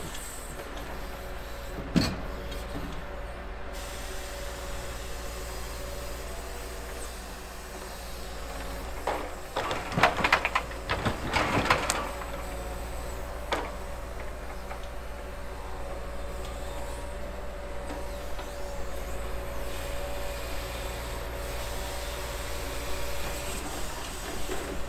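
Scania R580 V8 timber truck's engine running steadily while it powers the truck-mounted log crane, with a sharp knock about two seconds in. Logs knock and clatter together as the grapple handles them, loudest about ten to twelve seconds in.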